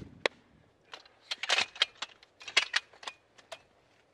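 Metal clicks and clacks of a telescoping ladder being pulled out section by section, in a few quick clusters about a second apart.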